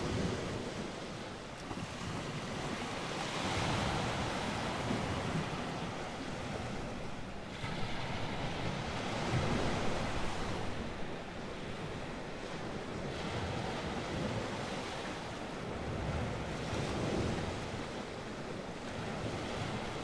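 Ocean waves washing, a steady rush of water that swells and eases every few seconds, with the largest surges about four, ten and seventeen seconds in.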